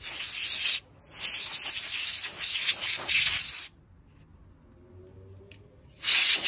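Compressed-air blow gun hissing in blasts, blowing dust out of a floppy disk drive mechanism: a short blast at the start, a longer one of about two and a half seconds, then quiet, and another blast beginning near the end.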